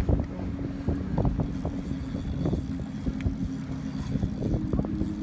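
Wind buffeting the microphone as a steady low rumble, under a faint steady hum, with scattered small clicks and knocks throughout.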